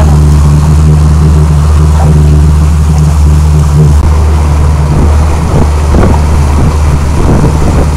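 A 50 hp outboard motor driving a small boat along at cruising speed, running loud and steady. About four seconds in its even drone breaks up and turns rougher.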